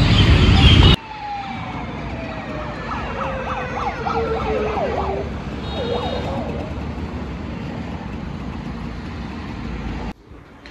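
Emergency-vehicle siren wailing and yelping, one tone sliding slowly down over several seconds, over steady road and wind noise from riding along a highway. The sound cuts off near the end.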